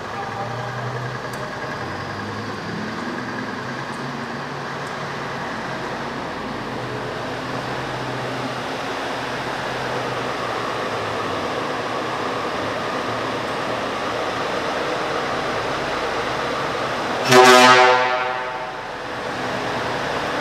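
Scania S520 truck's V8 diesel engine running steadily at low revs. Near the end, one loud horn blast lasts about a second.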